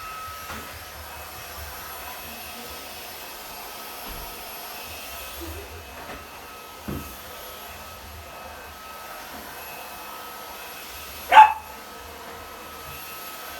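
Vacuum cleaner running with a steady hum and whine, and a corgi puppy giving one sharp bark at it about eleven seconds in.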